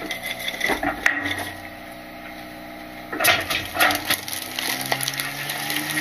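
Load Master Legacy rear loader's packer compacting trash in the hopper: a steady hydraulic and engine whine, rising in pitch near the end, under the crunching and cracking of the load being crushed, with a burst of loud cracks about three seconds in.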